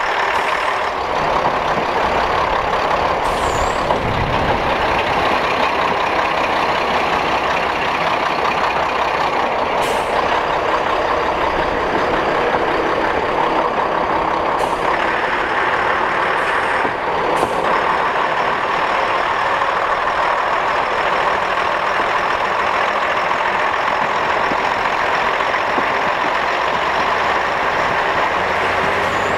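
Derby Class 108 diesel railcar under way, heard from inside the train: steady engine noise mixed with wheel and rail noise, with a few short clicks.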